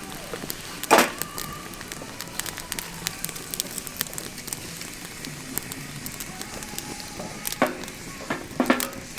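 Campfire crackling, with irregular sharp pops and a few louder snaps about a second in and near the end.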